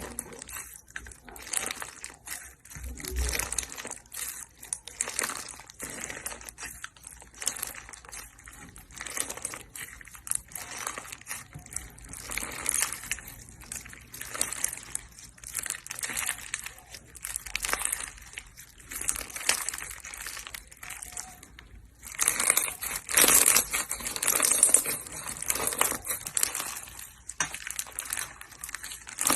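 Hands squishing and pressing slime, giving a dense run of small crackles and pops. After a brief pause about three-quarters of the way through, the crackling comes back louder.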